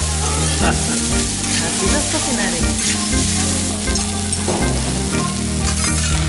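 Fried rice sizzling on a hot steel teppanyaki griddle, with metal spatulas repeatedly clacking and scraping on the plate as the rice is chopped and turned.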